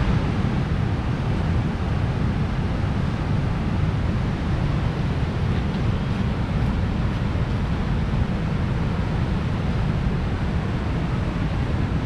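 Steady, deep rushing roar of river rapids, even and unbroken throughout.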